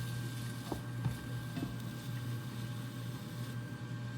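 Steady low kitchen hum, with a few faint soft taps and scrapes of a serving spoon as food is dished out.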